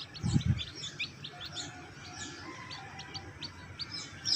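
A brood of young bantam chicks peeping continuously, many short high peeps a second overlapping from several birds. A brief low thump about a third of a second in.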